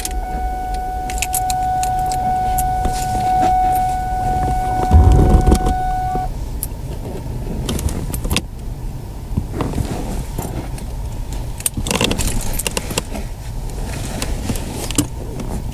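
Car keys jangling at the ignition while a steady electronic warning tone sounds for about six seconds. A low thud comes about five seconds in, followed by scattered clicks.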